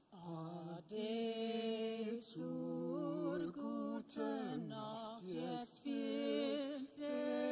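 A man and a woman singing a slow German folk song together, unaccompanied, in held notes with short breaks for breath.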